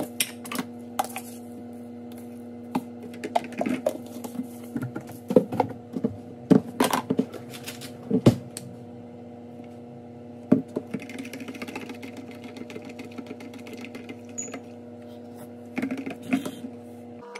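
Microwave oven running with a steady hum, which stops near the end. Over it come scattered clicks and taps as a plastic coffee-jar lid is twisted off and a metal spoon scoops coffee and stirs it in a plastic cup.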